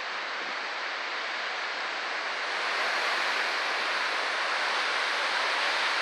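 Strong wind rushing through the leaves of large trees: a steady hiss that grows louder in a gust about two and a half seconds in.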